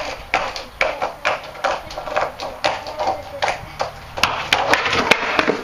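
A skateboard rocking and rolling on a paved patio under a barefoot rider, its wheels and deck making a run of irregular light clicks and taps, a few each second.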